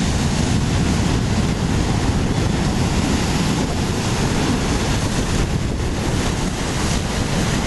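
Sea surf breaking and washing over a rocky shore, a steady heavy rush, with wind buffeting the microphone.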